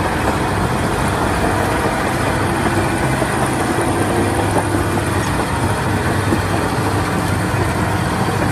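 Diesel engine of a large Caterpillar crawler bulldozer running steadily as it pushes soil with its blade, with a strong low drone.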